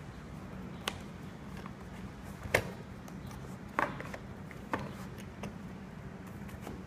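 Parts being packed into an aluminium carry case: a few sharp knocks and clicks as a padded pole and fittings are set into its foam-lined tray, the loudest about two and a half seconds in. A steady low hum runs underneath.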